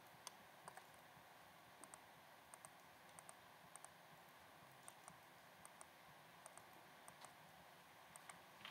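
Faint computer-mouse clicks at a laptop, many in quick pairs, coming at an uneven pace of about one every half second to a second, over faint room tone. The clicks are setting the vertices of a polygon in a map drawing tool.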